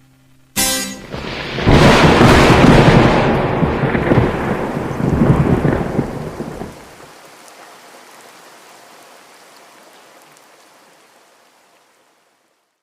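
A thunderclap: a sudden crack about half a second in, then a long loud rolling rumble that dies away about seven seconds in, followed by a faint steady hiss like rain that fades out.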